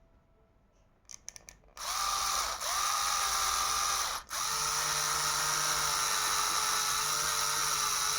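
Small electric drill with a 2 mm bit starting up about two seconds in and running steadily as it bores a shallow pilot-marked hole, with a brief stop and restart around halfway. A few light handling clicks come just before it starts.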